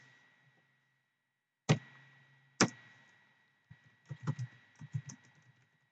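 Computer keyboard keystrokes while typing code: two separate louder key presses about a second apart, then a quicker run of softer keystrokes.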